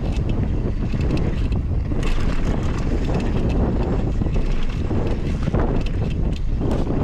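Mountain bike descending fast over a dry dirt and gravel trail: heavy wind rush on the microphone over tyre roar, with the bike rattling and knocking over bumps throughout.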